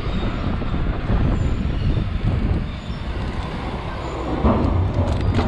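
Mountain bike ridden fast over pavement, heard on a handlebar-mounted camera: a steady low rumble of wind buffeting the microphone together with tyre and frame rattle from the road surface.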